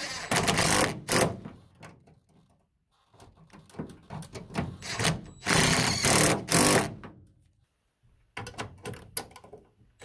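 Cordless impact driver with a socket, running in three bursts to tighten bolts on a truck mirror mount; the middle burst is the longest and loudest.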